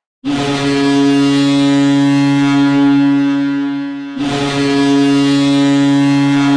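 Boston Bruins goal horn, a deep, steady ship-style horn, sounding two long blasts: the first starts suddenly and holds about four seconds, and the second follows after a brief dip. It announces a Bruins goal.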